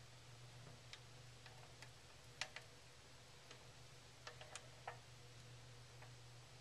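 Near silence: a low steady hum with a dozen or so faint, irregularly spaced clicks, the loudest about two and a half seconds in.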